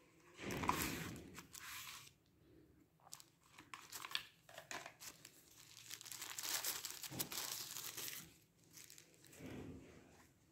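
Thin plastic pouch crinkling and paper packaging rustling as a clear phone case is unwrapped by hand. It comes in several bursts with small clicks between them; the longest stretch of crinkling falls a little past the middle.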